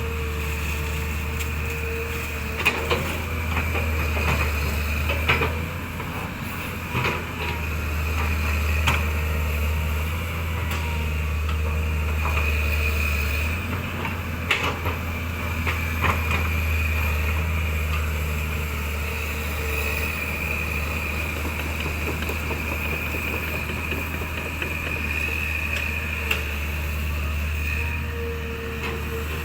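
A motor running steadily, its low hum shifting in strength a few times, with scattered sharp knocks and clanks.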